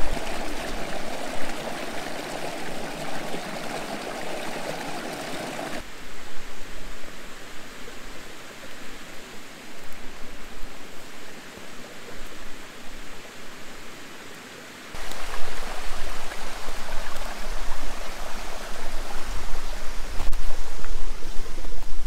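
Rushing water of a rocky mountain stream and small waterfall, a steady noisy hiss. The sound changes abruptly twice, and in the later part a low, uneven rumble is mixed in.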